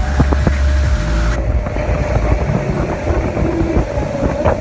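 Motorboat's outboard engine running at speed, a steady drone with knocks and rushing water, with wind buffeting the microphone during the first second or so.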